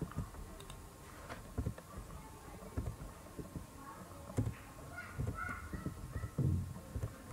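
Scattered computer keyboard and mouse clicks during copy-and-paste editing, with a faint higher-pitched call a little past the middle.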